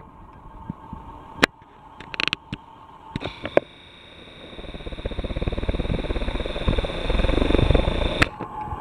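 CH-47 Chinook tandem-rotor helicopter, faint at first, then its low rotor beat and a thin steady turbine whine grow louder from about halfway through as it comes closer. A few sharp clicks come in the quieter first half.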